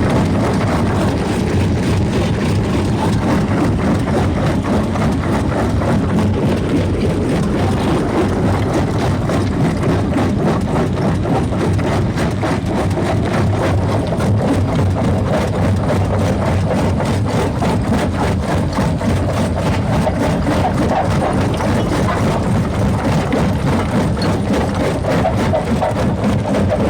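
Heavy machinery engine at rock-crushing work running steadily: a constant low drone with no change in pace.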